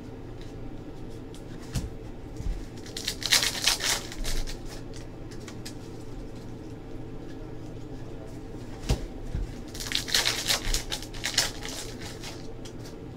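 Crinkling and rustling of trading-card pack wrappers and cards being handled, in two short bouts, about three seconds in and again around ten seconds in, with a few light clicks over a steady low hum.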